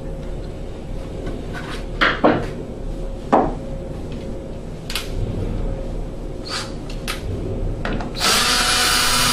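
Scattered clicks and scrapes of tool handling, then about eight seconds in a cordless drill/driver spins steadily for about two seconds, loosening the hose clamps on a gas furnace's inducer coupling.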